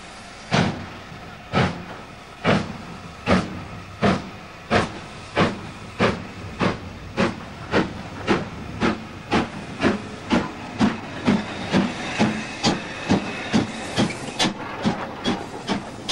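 LMS Stanier Black Five steam locomotive No. 4767 pulling away from a standstill: sharp exhaust chuffs from the chimney, about one a second at first and quickening to about two a second as it gathers speed, with steam hissing between the beats.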